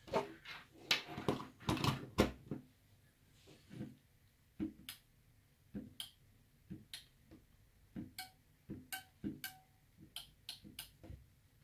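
Relays inside a three-gang Sonoff touch wall switch clicking sharply, one click at a time, as its touch buttons are tapped and the indicator lamps switch on and off; a few clicks carry a short tone. Before the clicking, a couple of seconds of knocks and rustling as the wiring is handled.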